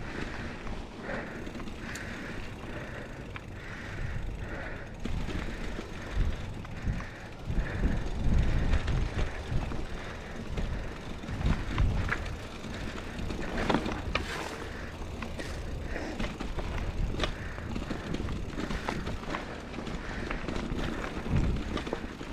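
Scott Spark full-suspension mountain bike rolling down a rocky dirt trail: steady tyre rumble on dirt and stones with frequent short rattles and knocks from the bike. It gets louder over the chunky rocky stretch in the middle.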